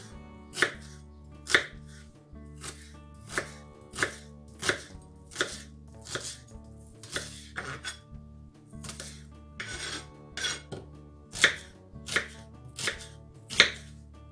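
Kitchen knife dicing an onion on a wooden cutting board: sharp knocks of the blade striking the board, about one or two a second at an uneven pace.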